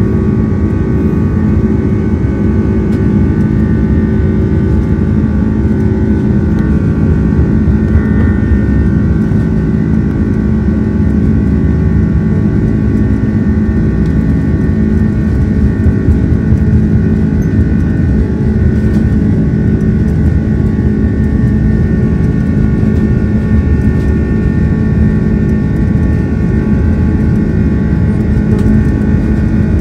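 Airbus A330-300's jet engines running steadily, heard from inside the passenger cabin as a loud, even drone with several steady tones.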